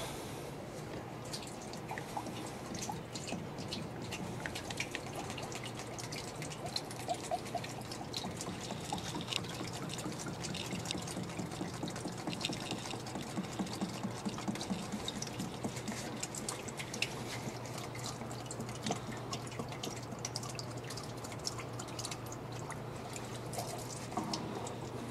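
Water-soluble cutting fluid trickling and dripping from an upturned plastic gallon jug into a band saw's coolant tank, in many small irregular drips, over a low steady hum.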